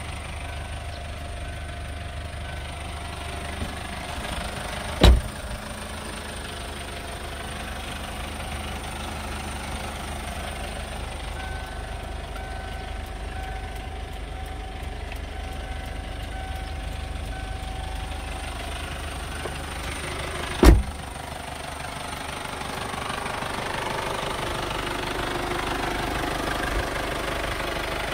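Kia Sportage 2.0-litre turbo diesel engine idling steadily with a diesel clatter, growing louder near the end. Two sharp thumps stand out, a car door being shut, once about five seconds in and again about three-quarters of the way through.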